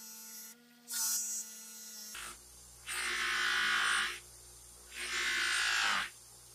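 Motor-driven buffing wheel spinning steadily while a small steel hammer head is pressed against it for the final polish, three times. Each press brings a louder rushing sound lasting about a second.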